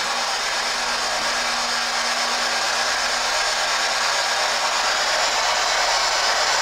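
Steady, even static hiss like white noise, with a faint low hum under it in the first few seconds.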